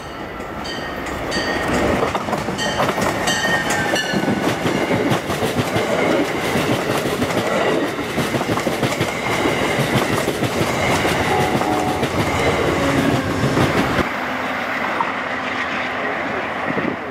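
Amtrak Downeaster passenger train passing close by at speed: a loud, steady rush of wheels on rail with a rapid clickety-clack over the rail joints, growing over the first two seconds as it arrives. There are a few brief high-pitched tones in the first few seconds. The deep rumble drops off about two-thirds of the way through as the rear locomotive goes by and moves away.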